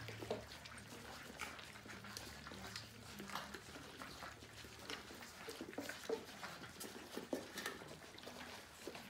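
Several puppies eating kibble together from plastic bowls: faint, irregular small clicks of chewing and of food and muzzles knocking against the bowls.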